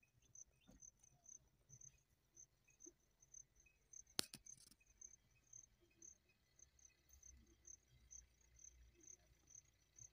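Faint insect chirping: a high chirp repeated evenly about four times a second, with a single sharp click about four seconds in.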